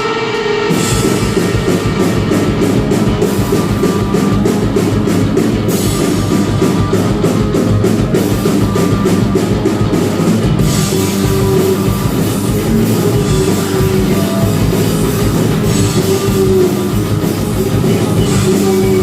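Rock band playing. A guitar sounds alone at first, and under a second in the drum kit and full band come in and play on steadily.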